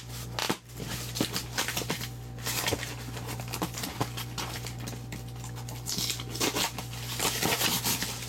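Packaging being handled: irregular rustling, scraping and clicking as the case of card boxes is opened and the boxes are moved about. A steady low electrical hum runs underneath.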